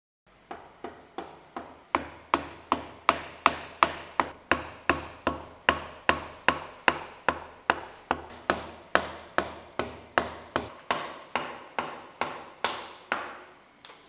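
A brass-headed chisel hammer tapping a wood chisel's handle over and over as the chisel cuts into a wooden block, about two and a half strikes a second, each with a short ring. The first few taps are lighter, then the strikes grow louder about two seconds in.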